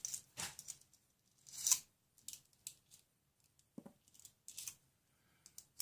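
Small metal clicks and scrapes as the bit in a screwdriver is swapped out for a straight-slot bit. The loudest scrape comes a little under two seconds in.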